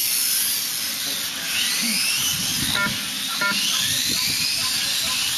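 Electric motors of 1/8-scale radio-controlled racing motorcycles whining, the pitch rising and falling over and over as the bikes accelerate and slow. Two short beeps sound near the middle.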